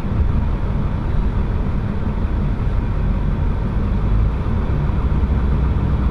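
A vehicle's engine and road noise heard from inside the cabin while driving: a steady low rumble with an even hiss above it.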